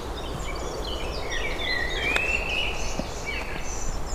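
Birds chirping and whistling over a steady outdoor hum, with a single sharp click about two seconds in: a golf club striking the ball on a short shot.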